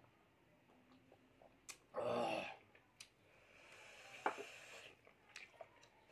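Close-up eating and drinking sounds as a man sips water and mixes rice by hand on a metal plate: one short, loud noisy burst about two seconds in, then a softer hiss with a sharp click partway through, and scattered small clicks.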